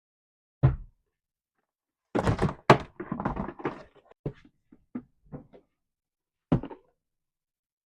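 Door thumps and handling knocks: a sharp thump about half a second in, a cluster of knocks and rattles from about two to four seconds, a few lighter clicks, then another thump near the end.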